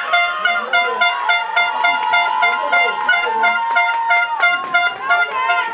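Horns blown in quick repeated toots, about four or five a second, with one long held note through the middle, over some shouting voices.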